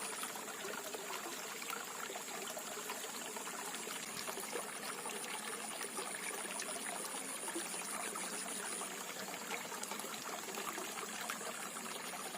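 Steady rush of flowing stream water, with a thin high steady tone that drops out and returns.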